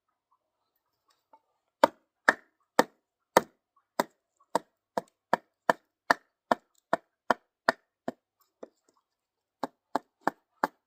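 Kindling being chopped: a quick, steady run of about twenty sharp chopping strikes, two to three a second, starting about two seconds in, with a short pause near the end.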